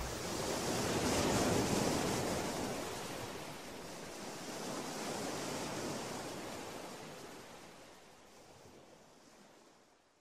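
Sea surf on a sandy beach: a steady wash of waves that swells twice and fades away toward the end.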